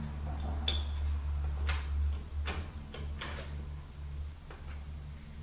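Scattered light metallic clicks and scrapes as the low-reverse snap ring and rear planetary are worked out of a GM THM-125C automatic transmission, over a steady low hum.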